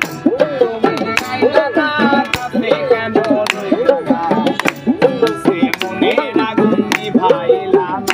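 Folk hand-drumming: a laced two-headed barrel drum and a small hand drum play a quick rhythm of sharp strokes, with a pitch-bending drum tone that swoops up and down about every three-quarters of a second.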